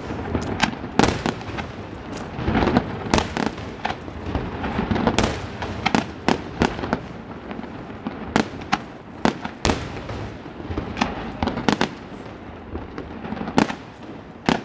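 Aerial firework shells launching and bursting: a rapid, irregular string of sharp bangs over a continuous background of noise.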